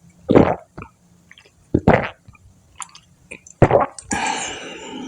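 Swallowing gulps of a drink close to the microphone, three of them about a second and a half apart, then a longer rasping sound near the end.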